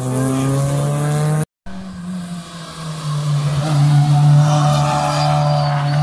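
Rally car engines running at high revs: one accelerates with a rising pitch and cuts off abruptly about a second and a half in, then after a brief gap another car's engine runs hard and climbs again midway.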